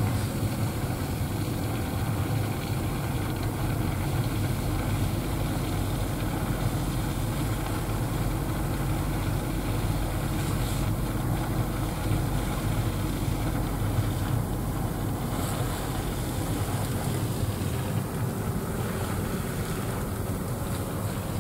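Steady low rumble of a car's engine and tyres heard from inside the cabin as it drives slowly.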